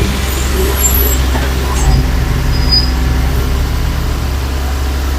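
Heavy earthmoving machine's diesel engine running steadily with a deep hum, with a few brief high squeaks about a second in and again near three seconds.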